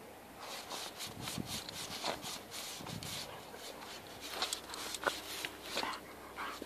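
A Weimaraner and a Bichon Frise digging in sand, their paws scraping in quick, irregular strokes, several a second.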